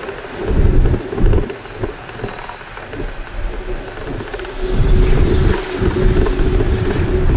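Ride inside a moving bus: wind buffets the microphone in heavy gusts over a steady hum from the running bus. The buffeting grows stronger about two-thirds of the way through.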